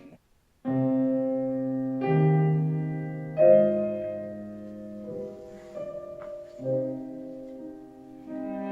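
Slow solo piano music played back through Audioengine A2+ BT powered desktop speakers and picked up in the room. It begins after a short silence about half a second in, with sustained chords changing every second or two.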